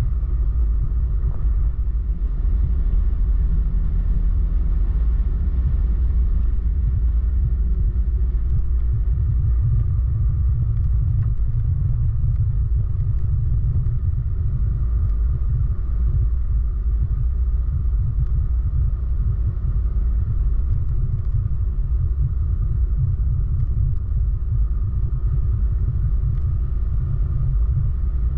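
Steady low rumble of a moving vehicle picked up by an onboard camera: engine and wind noise while travelling along a road.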